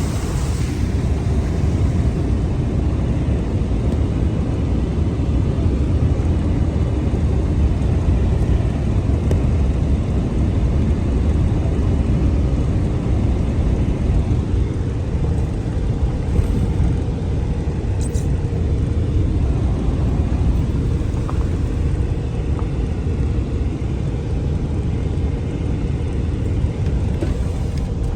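Steady, loud low rumble of wind buffeting the microphone in stormy weather, running without a break.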